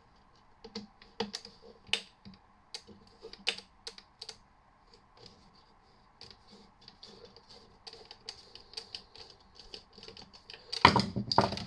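Irregular small clicks and taps of a screwdriver and hard plastic casing as a small Phillips screw is worked loose from an aerial's brass mounting, with a louder clatter near the end.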